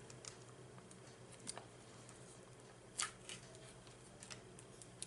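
A few light clicks and taps of food containers being handled and set down on a table, the loudest about three seconds in, over faint room hum.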